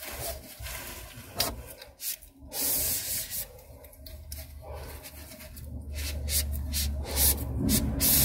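Paper tissue rubbing along a laser toner cartridge's magnetic roller, wiping off toner in irregular swishing strokes.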